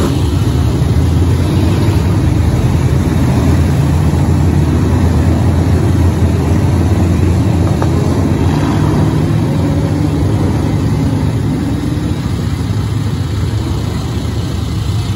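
A field of dirt-track race cars running around the oval, their engines a loud, steady drone with revs rising and falling as they pass; it eases a little near the end.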